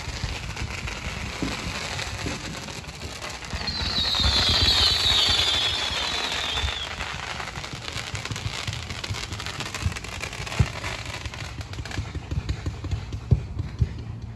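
Fireworks going off: a loud hissing, crackling rush a few seconds in, then a long run of rapid crackles and sharp pops, with a couple of louder bangs near the end.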